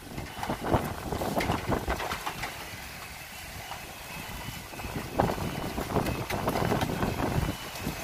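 Sandstorm wind gusting, heard as rumbling wind noise on the phone's microphone; the gusts ease off in the middle and pick up again about five seconds in.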